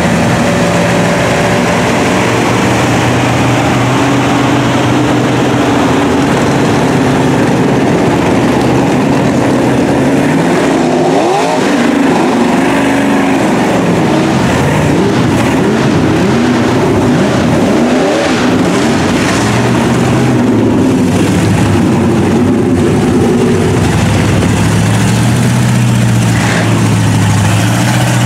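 Engines of big lifted mud trucks on tractor tires, running and revving as the trucks wade through deep floodwater. The revs rise and fall repeatedly through the middle, then settle into a steady low drone near the end.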